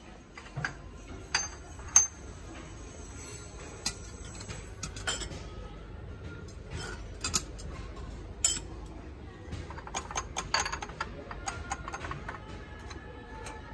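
Glass canister lids and jars clinking as they are handled: a string of sharp glass-on-glass clinks, the loudest about two seconds in and a quick cluster around ten to eleven seconds.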